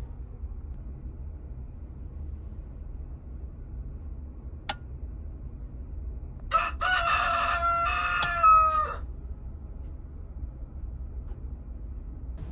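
A rooster crowing once, a cock-a-doodle-doo of about two and a half seconds that rises near its end, used as a wake-up cue for morning. It plays over a steady low hum, with a single click a few seconds before it.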